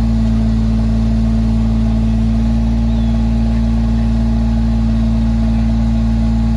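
Engine of a trailer-mounted asphalt crack-sealing machine running at a steady speed, a constant loud drone.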